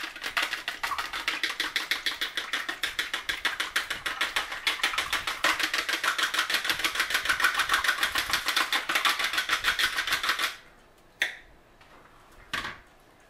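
A fork beating egg and milk in a plastic bowl: rapid, regular clicking of the fork against the bowl, several strokes a second, that stops abruptly about ten seconds in, followed by one or two single taps.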